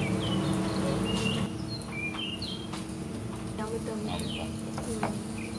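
Paratha cooking on a black tawa, with a metal slotted spatula clicking against the pan a few times over a steady low hum. Short high bird chirps come several times in the first three seconds.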